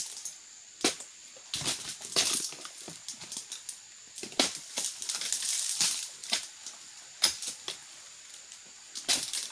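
Irregular chops and knocks of a long-handled pruning blade hacking at the frond bases of an overgrown oil palm, with a stretch of frond rustling and crunching about halfway through. A faint steady high-pitched tone runs underneath.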